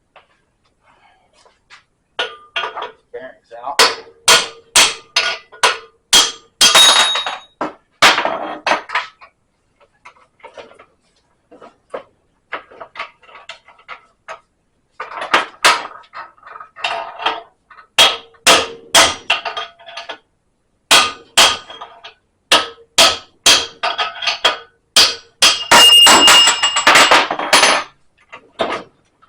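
Hammer blows on metal axle parts of a GM 8.5 rear differential being torn down, in several runs of quick strikes, about two to four a second, each ringing briefly.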